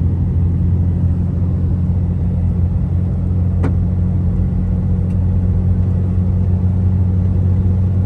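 Vehicle driving at a steady speed: an even, low engine and road rumble.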